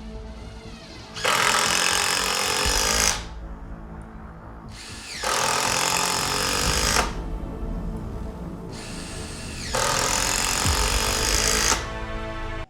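Cordless drill/driver running in three bursts of about two seconds each, driving screws into wood, over background music.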